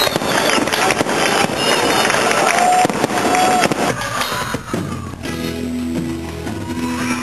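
Fireworks crackling and popping in rapid, dense bursts. About four seconds in this gives way to a live band playing, with electric guitars holding steady notes.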